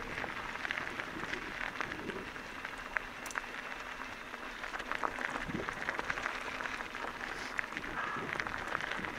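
Mountain bike tyres rolling over a loose gravel track: a continuous crackling of small stones popping and crunching under the tyres.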